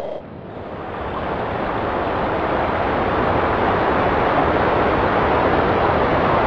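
A loud, even rushing noise that swells over the first two seconds and then holds steady, a sound effect laid under ground splitting open into a rift.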